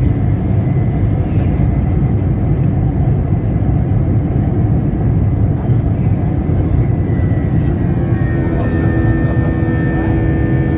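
Airliner noise during takeoff: a loud, steady, deep rumble. About eight seconds in, a set of steady whining engine tones rises out of it.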